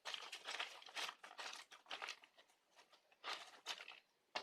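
Rustling and crinkling from hands handling an orchid and its potting, in several irregular crackly bursts, with a short click near the end.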